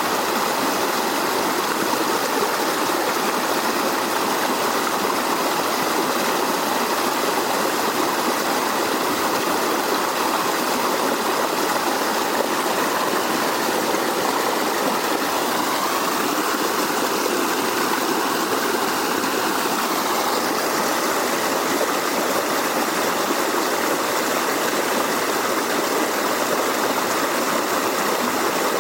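Creek water running over rocks, a steady rushing burble.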